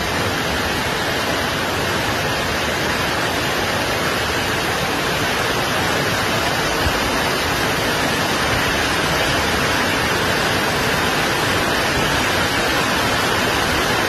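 Steady, even rushing noise of fast-flowing muddy floodwater.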